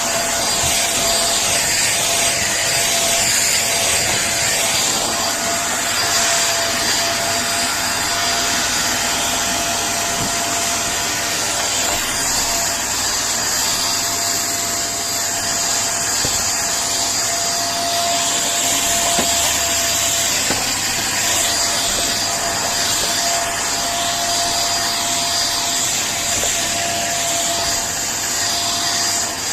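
Vacuum cleaner running steadily, a continuous rushing noise with a steady high whine.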